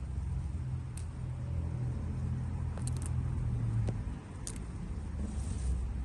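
A low, steady engine-like hum runs throughout. Over it come a few sharp snaps and a brief rustle as cilantro stems are picked by hand among the leaves.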